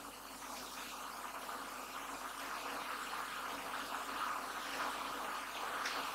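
Steady faint hiss of background room noise.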